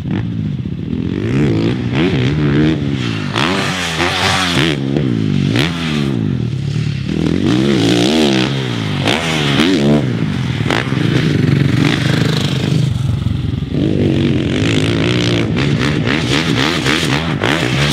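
Husqvarna FC450 single-cylinder four-stroke motocross bike ridden hard, the engine revving up and dropping back over and over, every second or two, as the rider works the throttle through jumps and rhythm sections.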